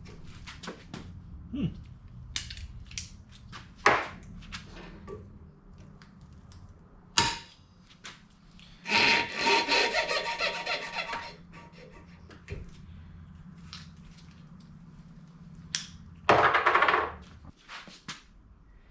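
Hand work on metal parts: scattered clinks and knocks, with a rasping burst of tool noise lasting about two seconds around nine seconds in and a shorter one near the end, as a stuck wheel bearing is worked on at the rear trailing-arm hub.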